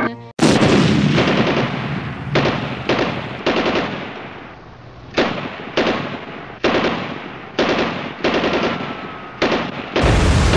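Machine-gun fire sound effect: short bursts of rapid shots, repeating at uneven gaps of about half a second to a second and a half. A louder, continuous blast of noise sets in near the end.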